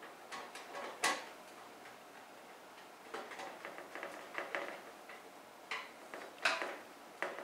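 Small irregular clicks and taps of hardware being fastened by hand inside a computer case, a screw being driven in. The loudest clicks come about a second in and about six and a half seconds in.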